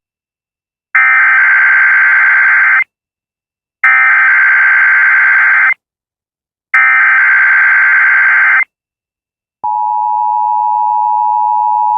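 NOAA Weather Radio SAME header: three identical bursts of digital data tones, each about two seconds long and about a second apart. Near the end the steady 1050 Hz warning alarm tone starts. This is the weekly test of the alert tone system.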